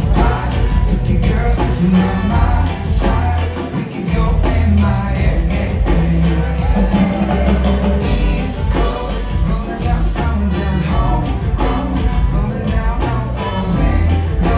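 Reggae band playing live: drums keep a steady beat over heavy bass, with singing.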